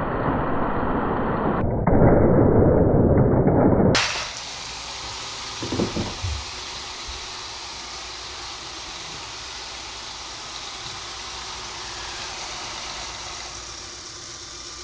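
Muffled train rumbling that grows louder about two seconds in and cuts off abruptly about four seconds in, as the motorized Lego steam train meets the oncoming Lego train. A quiet steady hiss follows, with one brief swooshing knock around six seconds.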